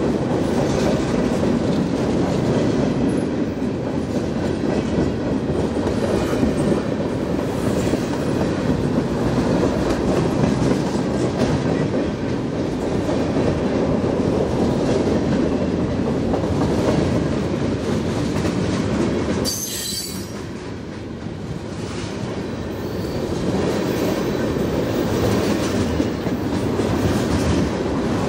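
Freight cars of a passing train rolling by close at hand: a steady rumble and clatter of steel wheels on rail. It eases briefly about two-thirds of the way through, then builds again.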